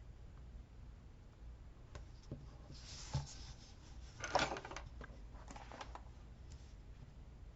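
Soft rustling and handling of paper and sticker sheets at a craft table, with a light tap about three seconds in and a louder papery rustle about a second later, over a faint steady hum.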